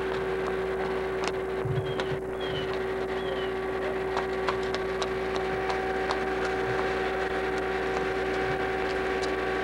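A steady hum with one constant tone over a noisy hiss, with a few faint short chirps about two and three seconds in.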